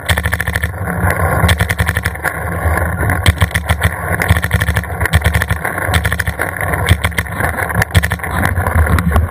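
Paintball markers firing in rapid, dense, irregular volleys of sharp cracks, over a steady low hum.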